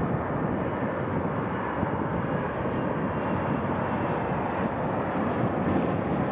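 Embraer E175 regional jet on final approach with its landing gear down, its two turbofan engines running at a steady, even rumble.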